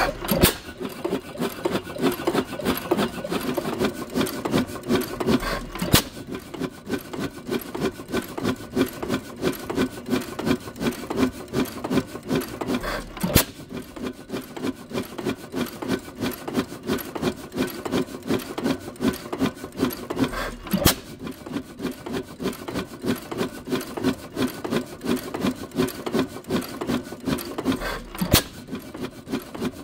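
12 HP Witte hit-and-miss engine running: a steady rapid clatter of its valve gear and governor as the flywheels turn, broken by a single sharp firing bang about every seven seconds, five in all, as it coasts on the misses between.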